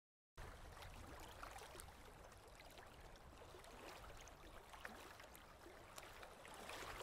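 Faint lapping of small ripples at the water's edge, with light ticks and splashes, starting after about half a second of dead silence.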